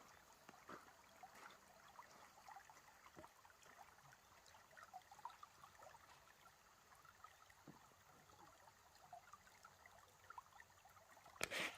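Faint trickling of a small creek: many small gurgles and drips over a quiet hiss. A brief louder rustle comes near the end.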